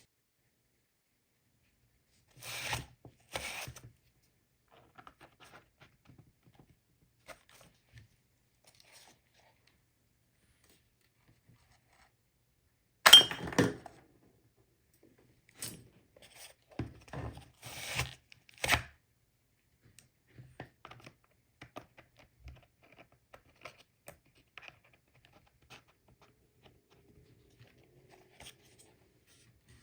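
Cardboard being worked by hand: scattered tearing and handling noises in short bursts, the loudest about halfway through and several more close together soon after, with small taps and ticks between.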